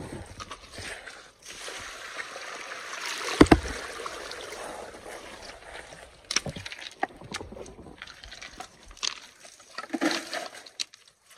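Water and wet gravel sloshing, with one heavy thump about three and a half seconds in. After that, stones click and scrape as gravel is pushed by hand across a gold sluice.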